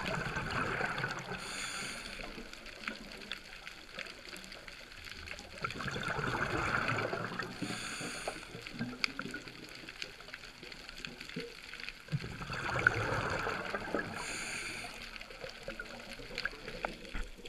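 A diver breathing through a scuba regulator underwater, three breaths about six seconds apart. Each is a rush of bubbling exhaust followed by a short hiss.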